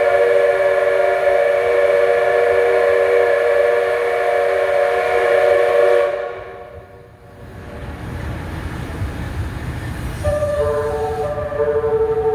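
A long, steady multi-tone train whistle that cuts off, then the low rumble of the Train Suite Shiki-shima pulling out. Near the end its musical horn plays a short stepped melody over the rumble.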